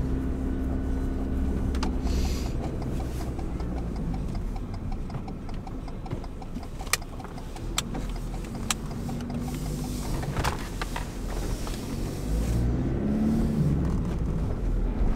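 Car engine and road rumble heard from inside a moving vehicle, with a few sharp clicks around the middle.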